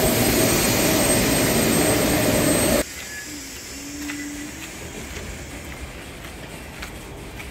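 ZSSK class 162 electric locomotive close by, its equipment running with a loud rushing noise and a high steady whine. About three seconds in the sound cuts off suddenly and drops to a much quieter hum with a few faint clicks.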